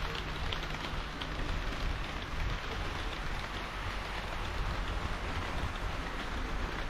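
HO-scale model train of KiHa 40 and KiHa 58 diesel railcars running along the track: a steady rolling rattle of small metal wheels on the rails.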